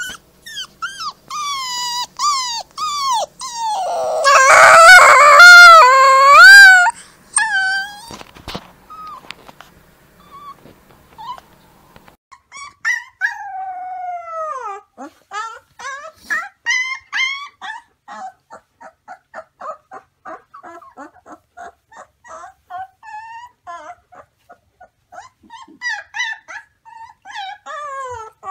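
Puppies howling: high, wavering howls that slide up and down in pitch, loudest a few seconds in. Later come drawn-out falling howls and a long run of short yips and whimpers.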